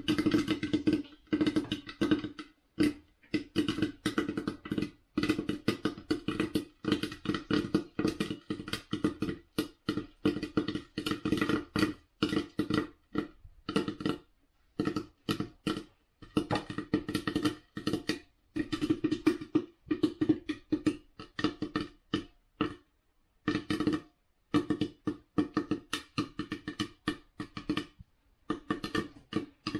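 Popcorn kernels popping inside a lidded stainless-steel pot: a dense, irregular run of sharp pops, many a second, each ringing off the metal pot, with a few short lulls.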